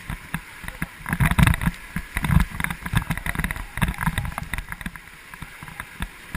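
River water rushing and splashing against a raft, with irregular knocks and bumps. It is loudest about a second and a half in, and again at two and a half seconds, then eases off near the end.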